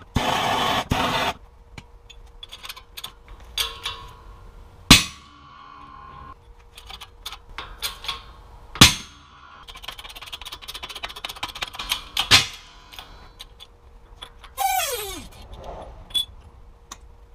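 A corroded original wheel bearing being forced out of a strut housing under a 12-ton shop press. It gives three loud, sharp bangs about four seconds apart as it breaks loose, with smaller metallic clicks and a short falling squeal near the end. A hiss of about a second and a half at the very start comes from a MAPP gas torch heating the housing.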